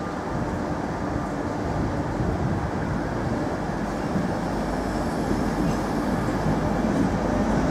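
InterCity 225 train, Mk4 coaches propelled by a Class 91 electric locomotive, moving past along a station platform: a steady rumble of wheels on rail that grows louder toward the end as the locomotive draws near.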